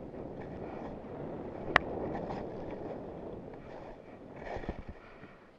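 Skis hissing through soft powder snow, with wind on the microphone. A single sharp click comes about two seconds in, and a few low thumps near the end as the run slows.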